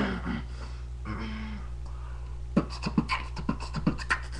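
Beatboxing into cupped hands: a fast rhythm of mouth-made kicks, clicks and snares, about five hits a second, starting a little past halfway. Brief voice sounds come before it in the first second and a half.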